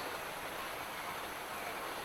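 Light rain falling: a steady, even hiss with no birdsong.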